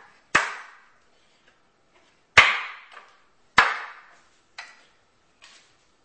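Sharp knocks on wood: three loud ones, then two fainter ones, as the seat front of a wooden rocking chair is struck by hand to drive its joints onto the side rails.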